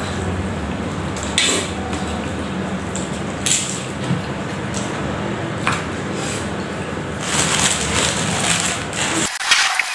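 Close-up eating sounds: instant noodles being slurped and chewed, with short slurps every couple of seconds over a steady background hiss.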